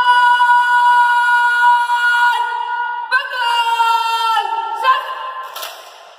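A cadet's drill command shouted in one long, drawn-out, sing-song call, held on a single high note for about three seconds, then breaking into two shorter, lower parts that fade out. A brief sharp knock comes near the end, as the rifles are brought up.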